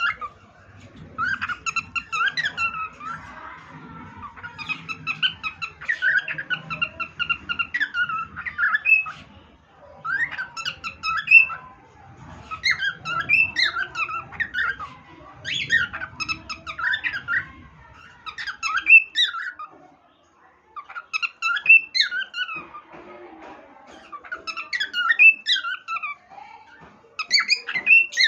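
Pet cockatiel whistling a tune in short phrases of a second or two each, with brief pauses between them.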